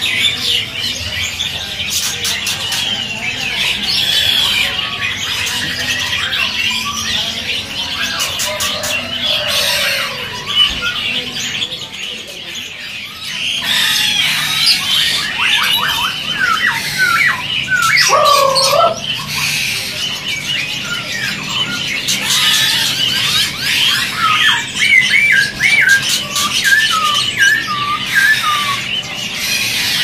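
Many caged songbirds calling together: a dense mix of chirps, squawks and chatter. Clear whistled phrases of quick rising and falling notes stand out about halfway through and again near the end.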